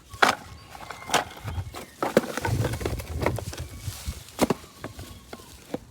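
Irregular sharp knocks and clicks, about one a second, with a low rumble between about two and three and a half seconds in.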